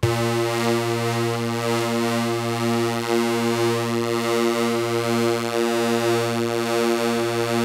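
Studiologic Sledge synthesiser holding one low note, held steady throughout, through three detuned oscillators, two sawtooth and one pulse wave: a bright, reedy supersaw tone with a beating shimmer from the detuning.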